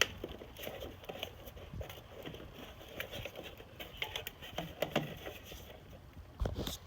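Small scattered clicks and taps of hands working wire connectors and terminals on a furnace ignition module, with a dull knock near the end.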